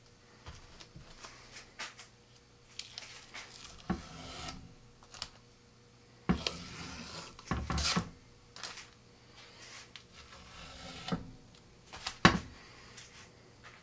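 Blue painter's tape being peeled off a rocket's body tube beside freshly epoxied fin fillets, in a series of short, uneven tearing rips with light handling knocks. The longest rips come about halfway through, and a sharp click comes near the end.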